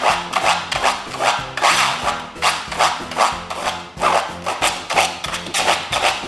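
Beer bottle cap spun on a twisted string like a button whirligig, whirring and rasping against a plastic-wrapped bread roll. The sound swells with each pull of the string, about two to three times a second. Background music plays underneath.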